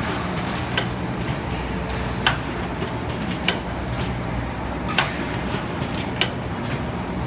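DPP-80 flat-plate blister packing machine running on Alu-Alu foil: a steady drive hum with a sharp metallic clack about once every second and a half as the machine cycles.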